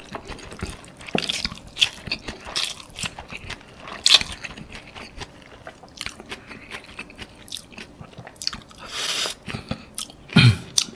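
Close-miked chewing of prawn pad thai (flat rice noodles with bean sprouts): wet smacking mouth sounds with crisp crunches at irregular intervals.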